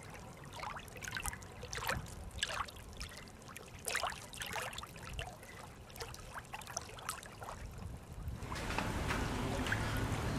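Water trickling and lapping in small, irregular splashes. About eight and a half seconds in, a steadier hiss takes over.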